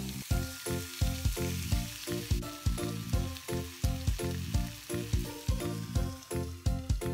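Pork belly slices sizzling as they fry in oil in a frying pan, under louder background music with a steady beat.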